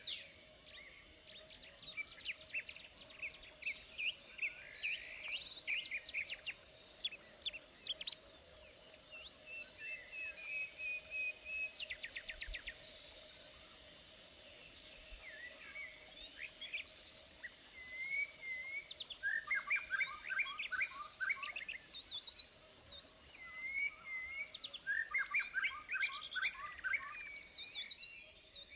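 Several birds singing and chirping, with rapid trills and short whistled phrases, over a faint steady background hum.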